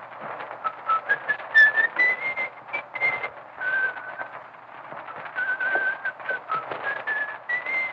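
A person whistling a tune in held notes that step up and down, over the steady crackle of an early sound-film soundtrack.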